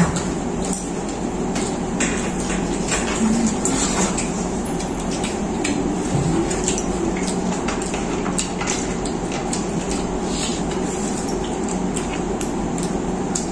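Paper food wrappers crinkling in short, scattered rustles as wrapped rolls are handled and eaten, with light knocks against plates, over a steady low hum.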